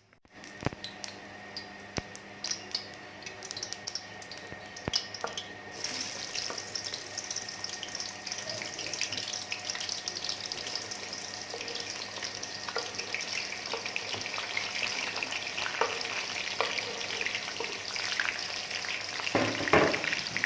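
Onions tipped into hot cooking oil: a few crackles, then about six seconds in a sudden sizzle starts and keeps going as the onions fry. A few knocks near the end, typical of stirring.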